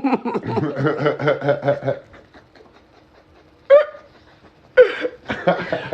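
A person laughing: a run of quick laughs for about two seconds, then a few shorter bursts of laughter or voice near the end.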